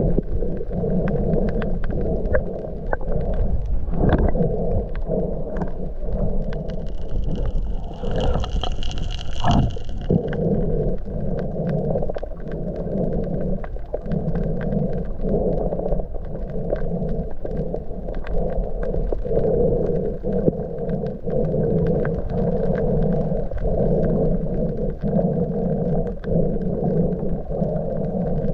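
A steady, muffled low rumble that dips and swells at roughly even intervals, with a brief high-pitched squeal about eight seconds in.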